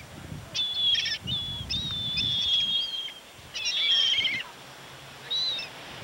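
Seagulls calling: several high, wavering calls, one of them long and drawn out a couple of seconds in, over a low rumble of surf or wind.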